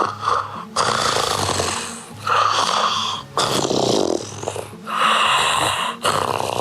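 A person snoring loudly, several snores in a row, each about a second long.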